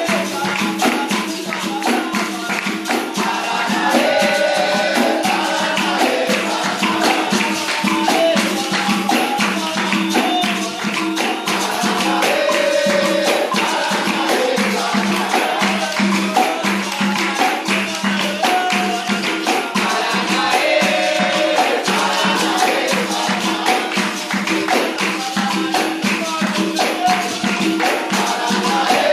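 Capoeira music: berimbaus led by the gunga, with caxixi rattles shaking and a pandeiro keeping a dense steady rhythm under sung melody.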